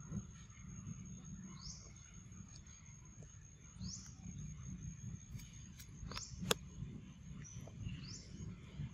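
Faint forest ambience: a steady high insect drone, four short rising bird chirps about two seconds apart, and one sharp click about six and a half seconds in, over a low rumble.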